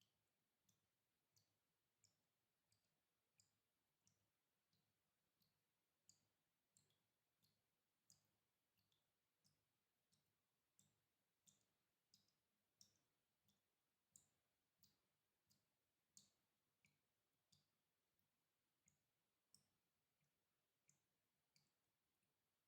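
Water dripping at a steady rhythm, about three drops every two seconds. Each drop is a faint, short, high plink, and some land louder than others.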